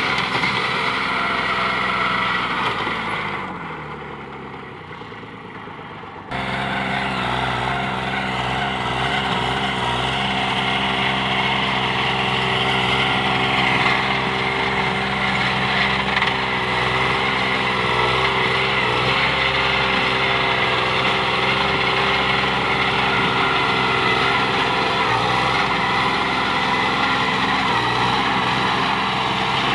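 Kubota B2420 compact tractor's three-cylinder diesel engine running steadily while driving a rotary tiller. About three seconds in, the engine note falls in pitch and quietens, as if throttled down. About six seconds in, the full running sound returns abruptly and stays steady.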